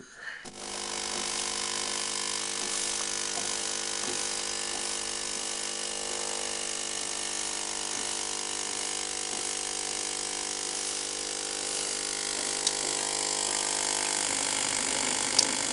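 Home espresso machine's vibration pump buzzing steadily while pulling a shot of espresso. The buzz starts about half a second in, and a couple of light clicks come near the end.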